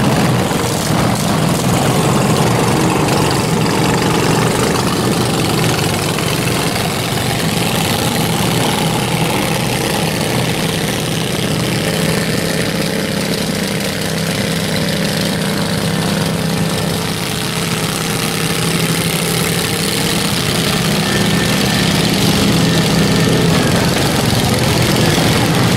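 Several riding lawn mower engines running together, a steady drone that grows a little louder near the end as one drives close.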